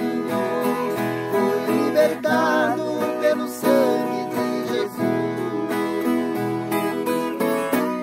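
Two violas caipiras, Brazilian ten-string folk guitars, strummed and plucked together in a country duet, with two men's voices singing over them.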